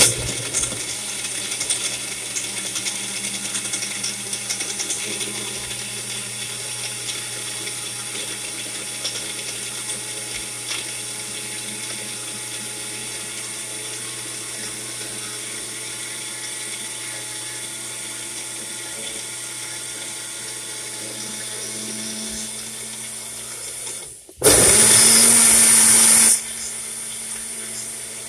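Bella personal blender running, its blades blending strawberries and milk into a smoothie with a steady motor hum. A little after 24 seconds it stops for a moment, then runs in a louder two-second burst and settles back to steady running.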